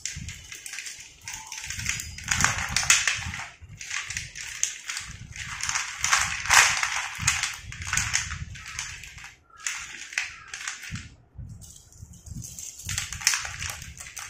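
A heap of slate pencils clattering as hands rake and scoop through them into a bowl: dense dry clicking and rattling that comes in waves, with short pauses about nine and a half and eleven seconds in.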